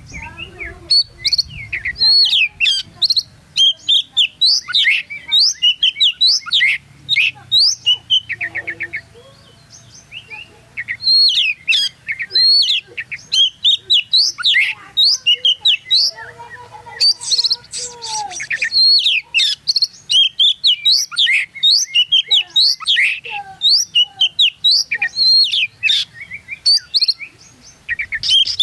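Caged oriental magpie-robin (kacer) singing a long, rapid, varied song of sharp whistled and chirping notes, many sweeping up or down in pitch, with a short pause about ten seconds in and a harsher, rasping stretch a little after the middle.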